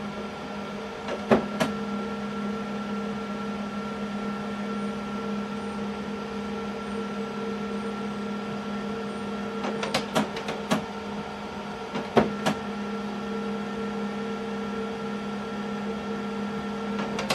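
HP Color LaserJet Pro MFP 3302fdw laser printer running its color calibration: a steady motor hum with a few sharp clicks of the mechanism, once about a second and a half in and again around ten and twelve seconds in.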